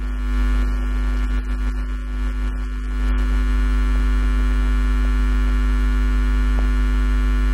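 Loud steady electrical mains hum: a low drone with a stack of steady buzzing tones above it, slightly uneven for the first three seconds and then flat.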